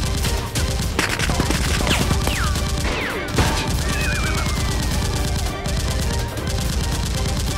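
Rapid, continuous gunfire sound effects, fusillade-like bursts of shots, with several short falling whizzes in the first half.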